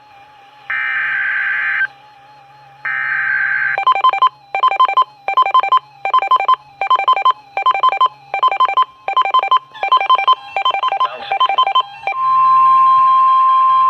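Emergency Alert System tones. The buzzy digital screech of the SAME data header plays twice, each burst about a second long. A rapid run of short beeps follows at about two a second. About twelve seconds in, the loud steady 1050 Hz NOAA Weather Radio warning alarm tone starts, announcing an alert.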